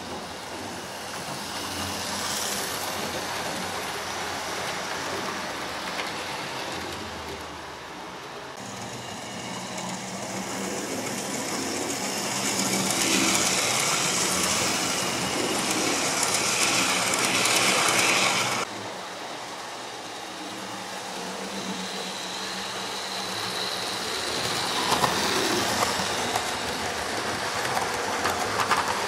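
Electric model trains running on the layout's track: a continuous whirr and rattle of motors and wheels on the rails, swelling as a train passes close, dropping suddenly about two-thirds of the way through, then building again near the end.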